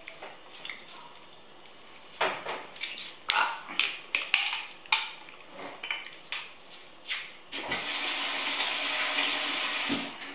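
Clinks and knocks of tableware and a plastic bottle being handled and set down on a wooden table. A steady rushing noise like running water follows for about two and a half seconds near the end.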